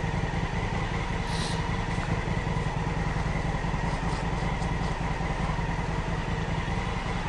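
Honda Africa Twin CRF1000L's parallel-twin engine idling steadily, with a brief hiss about a second and a half in.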